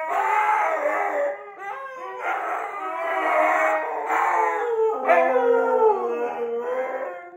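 Two Siberian huskies howling together, their long wavering howls overlapping at different pitches in three drawn-out waves.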